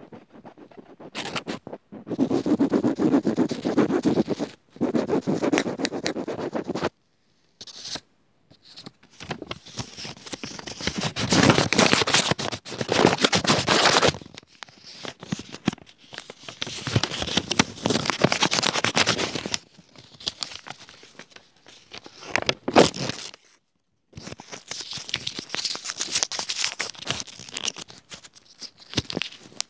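Close-miked ASMR scratching and scraping by hand, in bouts of a few seconds broken by short, sudden pauses.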